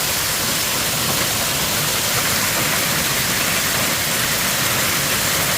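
Storm of driving rain and strong wind gusts: a steady, loud rushing noise.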